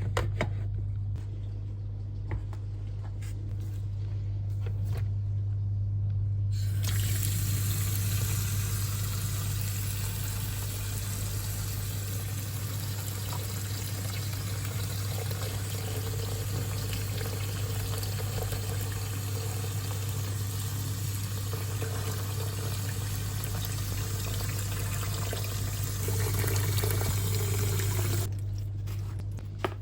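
Water running from a tap, starting several seconds in and stopping near the end, over a steady low hum. A few light clicks and knocks come before the water starts.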